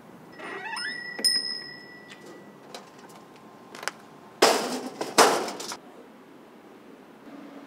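Kitchen clatter. About a second in there is a rising squeak and a ringing clink, followed by a few light clicks. Two short, loud rushing bursts of noise come between four and a half and six seconds in.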